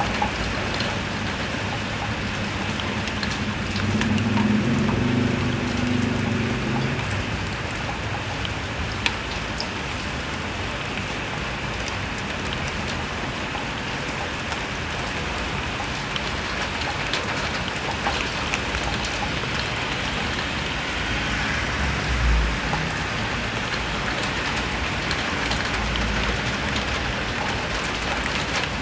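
Heavy rain falling steadily, with many drops tapping and spattering on a surface. A low rumble swells briefly about four to seven seconds in, and a low thump comes about three quarters of the way through.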